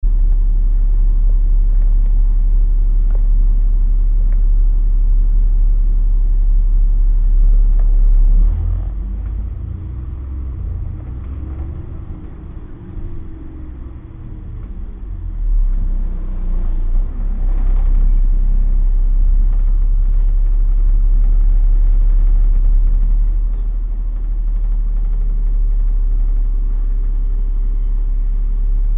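City bus engine running with a deep, steady rumble. It eases off about eight seconds in and picks up again around fifteen seconds.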